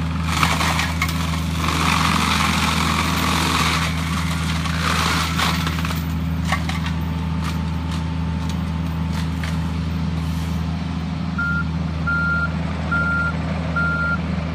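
John Deere 50G compact excavator's diesel engine running steadily under load, with its FX-26 mulcher head grinding and crunching through brush over the first few seconds. Near the end the excavator's warning alarm beeps about once a second, five times.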